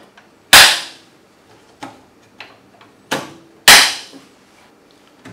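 Sharp plastic-and-metal clacks of a DeWalt cordless table saw's rip fence being pushed down and snapped into place: one loud clack about half a second in, a couple of faint clicks, then two more clacks close together after about three seconds.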